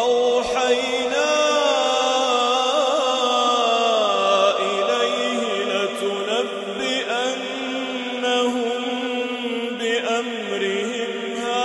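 A male reciter chanting the Qur'an in melodic tajwid style, drawing out one phrase in long held notes with wavering ornaments. The pitch steps down about four seconds in.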